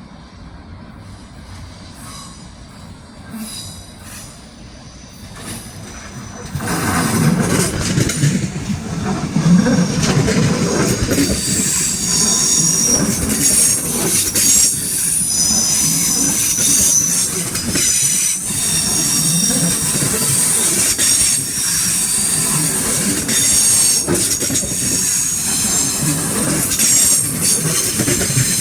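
ICE 4 high-speed train rolling into a station, its wheels squealing on the rails. The sound grows much louder about six seconds in, and from about twelve seconds on several high-pitched squealing tones ring over the rumble of the cars.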